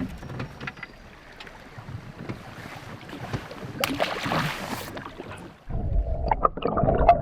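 Water and small-boat noise on a river, with light knocks and wind on the microphone, and a short rush of splashing about four seconds in. Near the end a louder low rumble starts suddenly.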